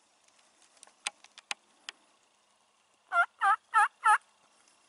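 Four loud turkey yelps in quick succession, about three a second, each a short pitched note, after a few sharp clicks.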